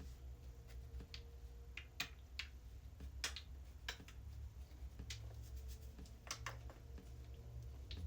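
Faint scattered clicks and taps from hands handling small hair-styling items, about a dozen spread irregularly, over a low steady hum.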